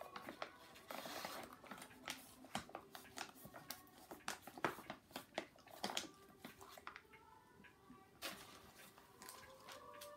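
Border terrier puppy snuffling through a fleece snuffle mat and crunching the treats it finds: an irregular string of short, crisp clicks and sniffs. A plastic treat packet crinkles about a second in.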